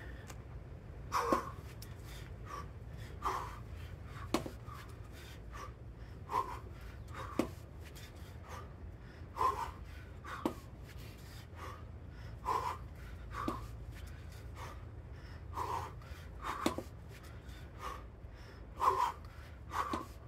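A person breathing hard from exertion, with short sharp exhales and gasps roughly every second or two. A few sharp knocks are scattered among them, over a steady low hum.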